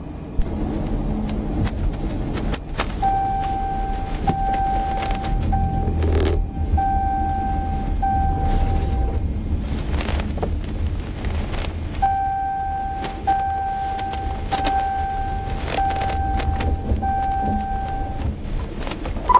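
Patrol car cabin with steady road and engine rumble, scattered clicks and knocks, and a vehicle's electronic chime beeping in two runs of about five steady tones, roughly one a second.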